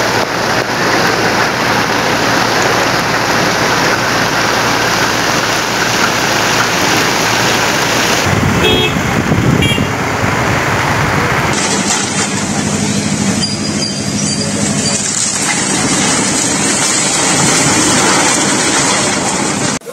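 Rushing roar of floodwater in torrent, a swollen river in heavy rain, heard across several spliced clips. A few short toots sound near the middle.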